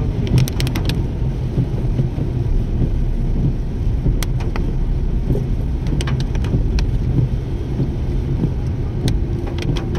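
Steady low rumble of a car driving through the rain on a wet road, heard from inside the cabin, with a few scattered sharp ticks, several close together in the first second.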